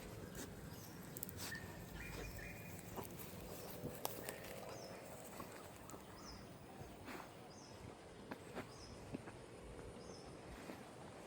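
Faint outdoor ambience with a bird repeating a short, high, falling chirp about every second, and a few scattered light clicks.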